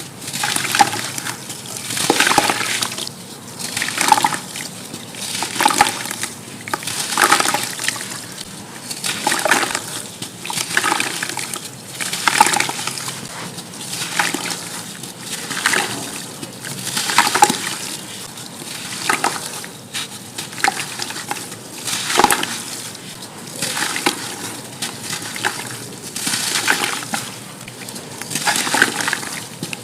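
Chunks of pure sand crumbling and dropping into water in a bucket, a crunch with a small splash about every second or so.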